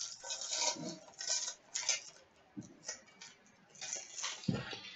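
Hockey trading cards being flicked through and sorted by hand: an irregular run of rustles, slides and light taps as cards pass between fingers and are set down on a glass tabletop.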